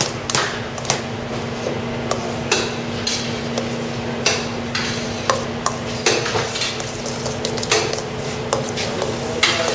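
Metal spoon stirring chopped avocado, tomato and onion in a stainless steel mixing bowl: irregular scrapes and clinks of spoon against metal bowl, over a steady low hum.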